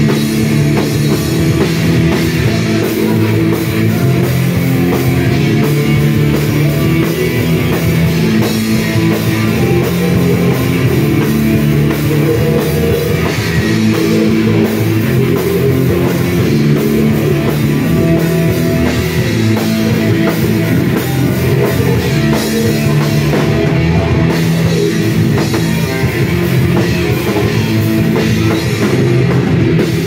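A heavy metal band playing live, loud and without a break: drum kit, bass and guitar, with singers on microphones.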